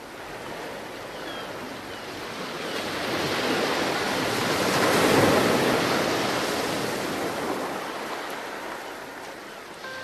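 Sea surf: a wash of wave noise that swells to a peak about halfway through and then dies away.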